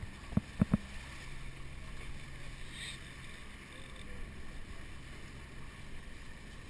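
Wind buffeting the microphone and water rushing along a catamaran's hulls under way, with a few sharp knocks in the first second and a low steady hum that stops about five and a half seconds in.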